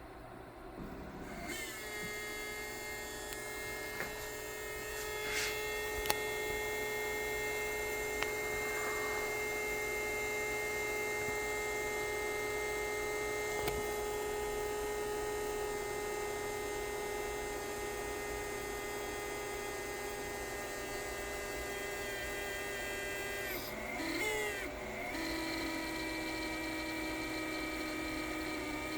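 Creality Ender 3 V3 KE print head running with a loud, steady whine of several held tones that steps up in pitch about a second and a half in and shifts again near the end, with a few faint ticks. It is the loud print-head noise the owner treats as a fault.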